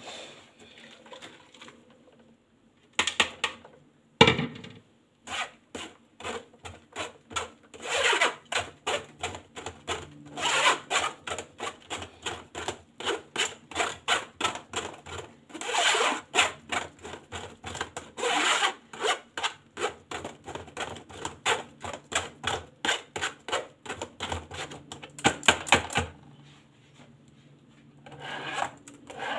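A metal spoon scraping against a wire-mesh sieve in quick, repeated strokes, a few a second, pressing blended fruit-and-greens pulp through the mesh to strain out the juice. A few louder knocks come around three to four seconds in.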